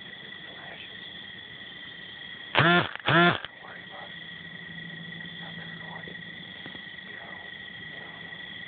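Crickets and other insects trilling steadily. About two and a half seconds in, two short, loud pitched sounds close to the microphone break in, each rising then falling in pitch.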